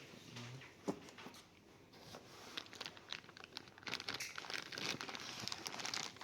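Packaging of a new laptop crinkling and rustling as it is handled, with one sharp click about a second in. The crinkling gets denser and louder from about halfway through.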